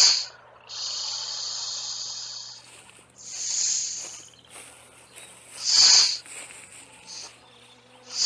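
Snake hissing: a sharp hiss at the start, one long hiss of about two seconds, then several shorter hisses at uneven gaps.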